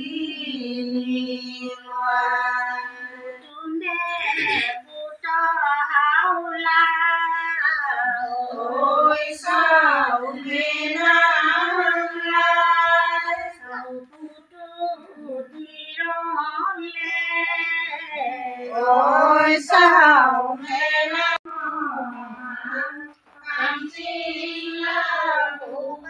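Women singing a Tai-language devotional nam together, in a run of sung phrases with short breaths between them.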